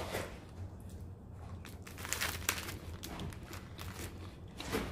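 Plastic wrapper of a Britannia Bourbon biscuit packet crinkling as it is handled, in several short rustles, the loudest about two seconds in and another near the end.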